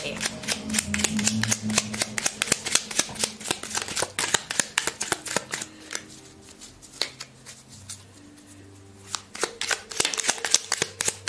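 A deck of divination cards being shuffled by hand: a quick patter of card flicks that thins out for a few seconds past the middle, then picks up again near the end.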